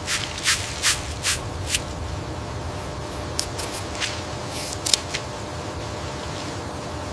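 A run of short, sharp swishes or clicks, about two a second at first and then scattered, over a steady low machine hum.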